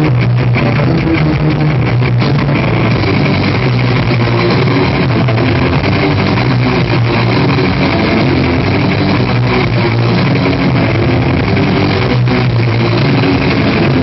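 Loud, distorted electric guitar played live through Marshall amplifiers, a dense run of notes over a sustained low note.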